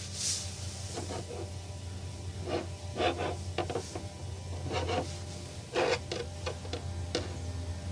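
Microfiber cloth rubbing and wiping along a glossy black ABS plastic trim piece in short, irregular strokes, buffing off a flashed ceramic coating.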